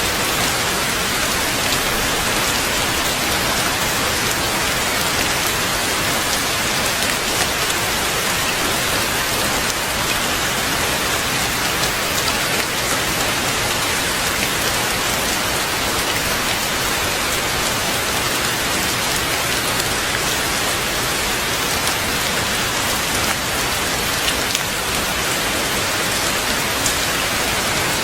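Heavy rain falling steadily, a dense even hiss of drops with no breaks.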